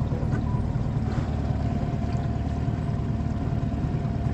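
Small boat outboard motor running steadily, a constant low hum.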